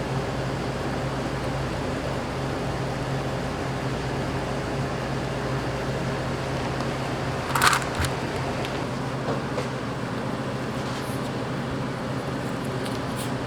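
Steady hum of kitchen machinery such as a fan or extractor, with a single sharp clatter about eight seconds in and a few light ticks after it.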